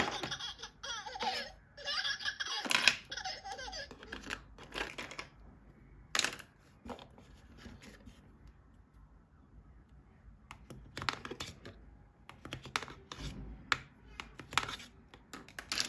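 Plastic toys being handled and unpacked: scattered sharp clicks and taps. For about the first four seconds a toy's electronic voice sound plays over them.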